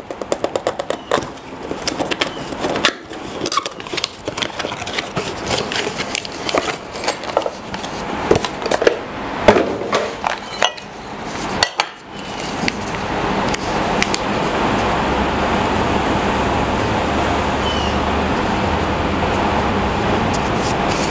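Cardboard and plastic packaging being opened, with small metal router-fence parts clinking and knocking as they are handled and set on the table top. About twelve seconds in, a steady rushing noise with a low hum takes over at an even level.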